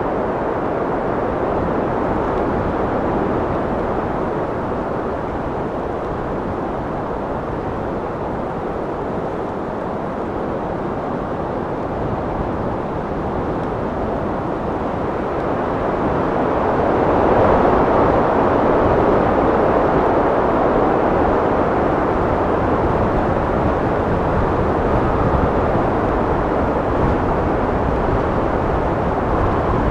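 Steady wind blowing, a rushing noise that swells into a stronger gust about 17 seconds in and stays a little louder after.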